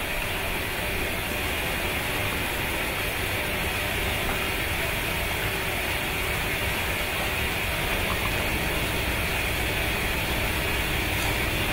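ShowTime PSE ZX8027 blue colour-flame pyrotechnic burning steadily, its flame giving off an even, unbroken rushing hiss.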